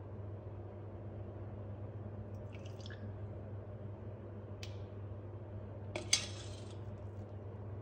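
A metal ladle scooping custard mixture from a stainless steel bowl and pouring it into ceramic ramekins: small liquid splashes and drips, with a sharp clink of the ladle against the bowl about six seconds in, over a steady low hum.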